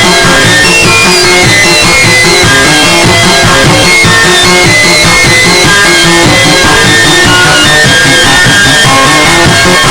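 Loud, distorted guitar-driven rock music with fast-changing notes over a dense, fast low pulse.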